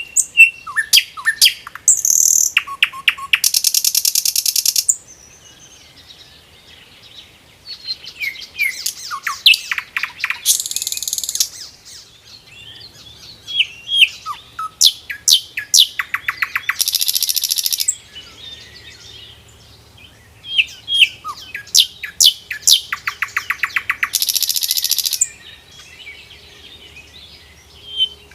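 Common nightingale singing: four loud song phrases, each a run of sharp notes and rapid trills ending in a harsh buzzing rattle, with short pauses between phrases.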